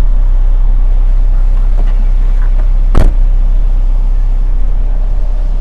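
A single loud slam about three seconds in as the minivan's rear hatch is shut, over a steady low rumble of wind buffeting the microphone.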